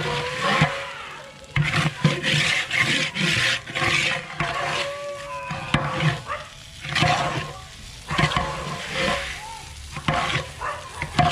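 Long metal spatula stirring and scraping raw biryani rice around a large aluminium pot, in repeated strokes with a faint metallic ring, as the rice fries in oil with a light sizzle.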